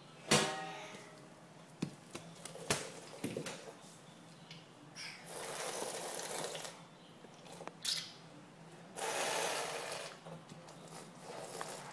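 Young children slurping and sucking spilled liquid straight off a wooden floor, with two long slurps about halfway through and near the end, and a few small clicks. A child's brief falling vocal sound comes just after the start.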